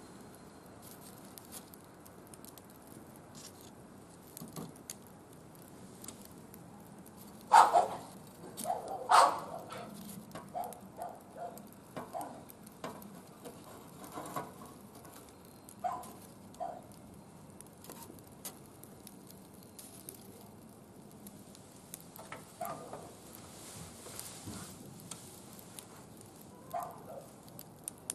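Wood fire crackling in a barbecue grill: scattered small pops and ticks, with two louder sharp cracks about seven and a half and nine seconds in.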